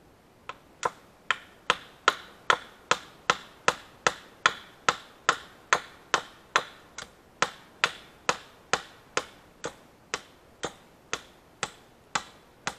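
Quick, even run of about thirty sharp knocks of a hand tool striking wood, two to three a second, each with a short ring, loudest in the middle.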